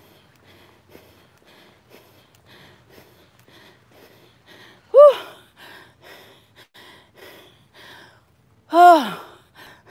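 A woman out of breath from walking uphill, breathing hard in quick, even breaths, with two loud voiced sighs, one about halfway through and one near the end, the second falling in pitch.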